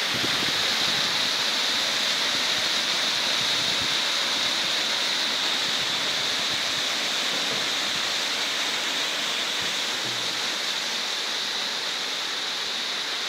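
Waterfall pouring down a steep rock face: a steady, unbroken rushing of falling water.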